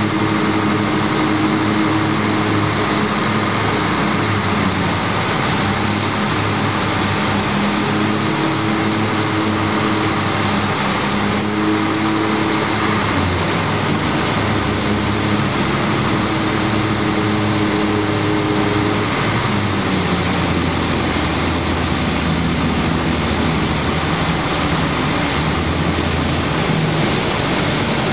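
Twin Scania 12-litre six-cylinder diesel engines of a fast powerboat running steadily at speed, over a constant rush of wind and water. The engine note drops slightly about two-thirds of the way through.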